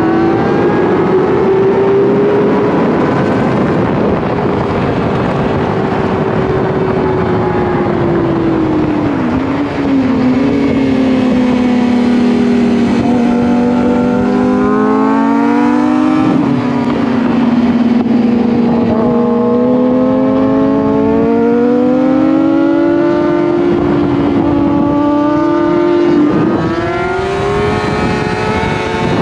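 A 600cc sport bike's engine running hard on track. Its note climbs and falls with the throttle and breaks sharply at gear changes, about a third of the way in, about halfway and near the end. A steady rush of noise runs underneath.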